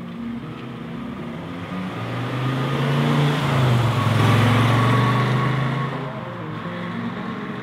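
1968 Chevrolet Camaro's 327 cubic-inch V8 accelerating past, its engine and exhaust note growing to its loudest about halfway through, then fading as the car drives away.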